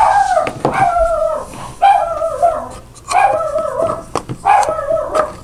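A dog whining in a string of drawn-out calls, each about a second long and falling in pitch, repeating about every second and a half. The dog is agitated: "freaking out about something."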